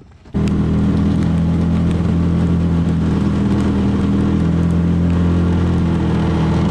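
A boat's outboard engine running at a steady speed, starting abruptly a fraction of a second in.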